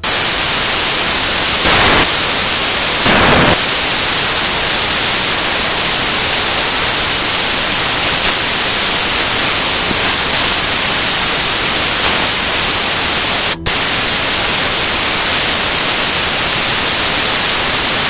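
Loud, steady static hiss like white noise, strongest in the highs, starting abruptly; it swells briefly twice in the first few seconds and drops out for an instant about thirteen and a half seconds in.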